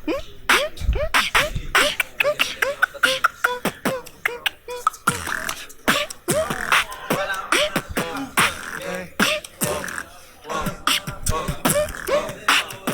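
Hip hop beat playing: quick percussive hits in a steady rhythm with short, repeated falling vocal-like tones, close in character to beatboxing.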